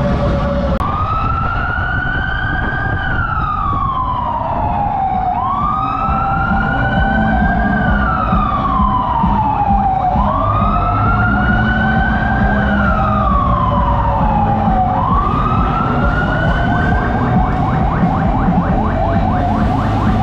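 Fire truck siren in a slow wail, rising and falling about every five seconds. On its fourth rise it cuts off short, near the end. A vehicle engine runs steadily underneath.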